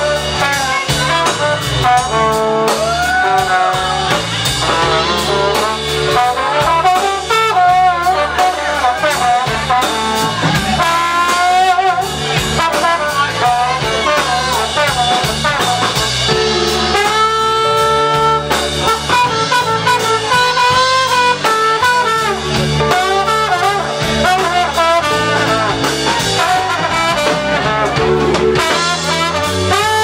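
Live band music in an instrumental passage, with brass instruments carrying a wavering melody over bass and drums.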